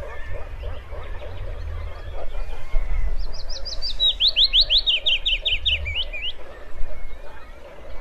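Leaf warbler singing one fast trill about three seconds in, about five sweeping notes a second, higher at first and then dropping lower, over faint chirps of other birds and a low rumble.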